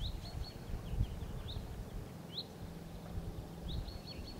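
Small birds chirping: many short, rising chirps scattered through, over a low uneven background rumble.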